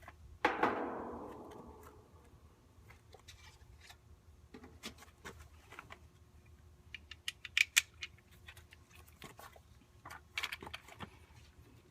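Handling noises as a hard start kit's relay is worked into place inside an air-conditioner condensing unit: a sharp knock about half a second in that rings on briefly, then scattered clicks and light rattles, busier near the middle and toward the end.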